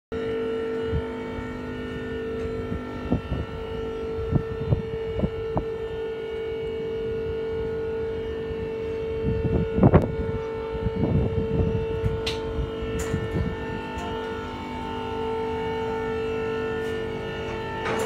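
A Stinger four-post car lift running with a steady motor hum, while the safety locks on its posts clack and knock now and then, most loudly in a cluster about ten seconds in.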